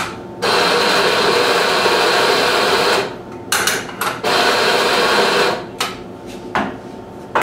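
Doserless electric espresso grinder grinding fresh coffee into a portafilter. It runs steadily for about two and a half seconds, gives a couple of short pulses, then runs again for just over a second; a few short knocks follow near the end.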